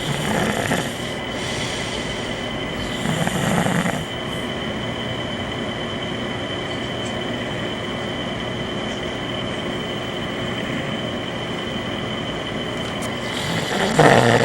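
A man snoring in his sleep: three rough snores about a second long each, two a few seconds apart near the start and one near the end, with a long pause between. A steady hum runs underneath.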